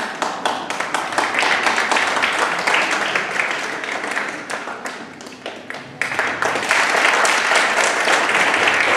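Theatre audience applauding: the clapping breaks out suddenly, eases off around four to five seconds in, and swells again about six seconds in.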